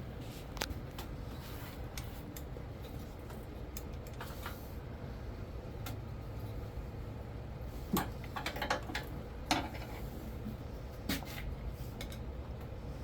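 Light metal clicks and knocks over a steady low hum, with a cluster of them about eight to ten seconds in and another near eleven seconds: engine parts being handled as a camshaft is worked into a Honda TRX125 cylinder head.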